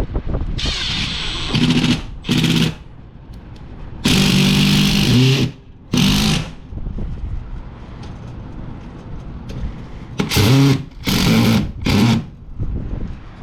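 Power drill running in several short bursts, the longest about a second and a half, with a steady motor whine each time.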